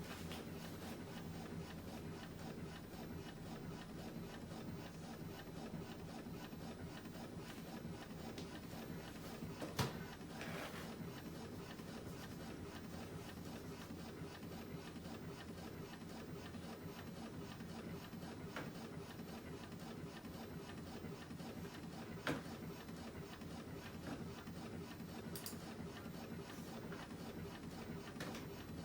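Canon Pro9500 Mark II inkjet printer running its start-up cycle after being switched on: a steady mechanical hum, with two sharp clicks, one about a third of the way in and one about three quarters in. The printer is getting itself ready to print after its print head and ink cartridges were refitted.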